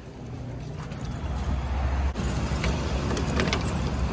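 A car's engine rumbling at a gas station, getting louder about a second in, with scattered clicks and rattles.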